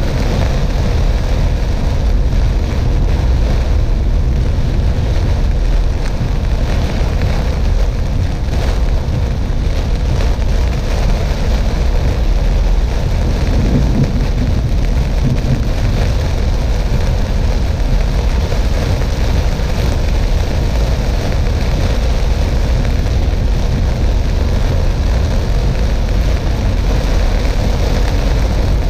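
Steady low rumble of a car driving on a wet road: tyre, engine and wind noise. A slight swell about halfway through as an oncoming vehicle passes.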